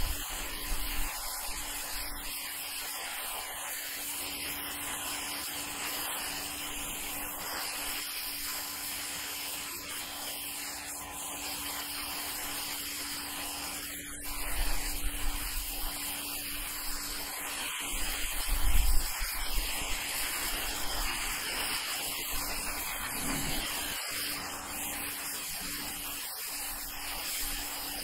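Ryobi RY141612 electric pressure washer's turbo nozzle jet hissing steadily as it blasts water onto asphalt roof shingles to strip moss, with a steady hum underneath. Brief low rumbles come twice around the middle.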